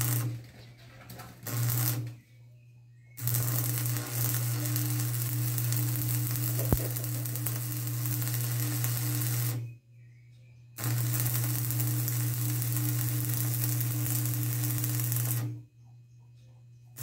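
Electric arc welding in bursts: a dense crackling hiss over a steady low hum, switching on and off abruptly. It runs in two long beads of about six and five seconds, with shorter ones around them, and a single sharp click partway through the first long run.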